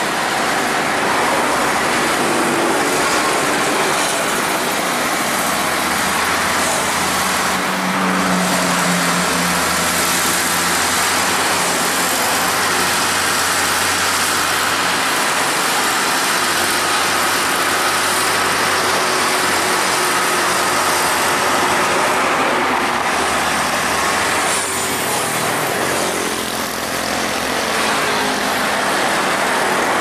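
Komatsu D65P-12 crawler bulldozer running its diesel engine under load as it pushes dirt, with its steel tracks moving, mixed with a hydraulic excavator working close by: a loud, steady din of heavy earthmoving machinery.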